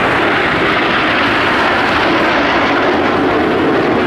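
Steady jet roar from a close formation of Aermacchi MB-339 PAN jet trainers flying overhead, each powered by a single Rolls-Royce Viper turbojet.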